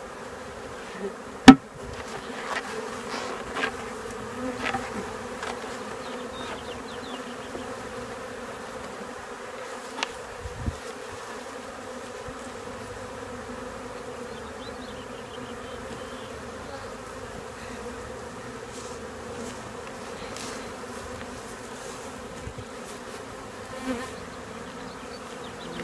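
Honeybees buzzing in a steady, even hum around a freshly installed hive, with many bees in the air after being shaken out of their nuc box. A single sharp knock about one and a half seconds in, and a fainter click near ten seconds.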